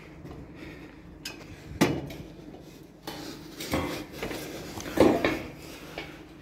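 Metallic clanks and knocks from climbing a steel scaffolding ladder, as hands and feet strike the tubes, rungs and boards. The loudest knocks fall about two, four and five seconds in.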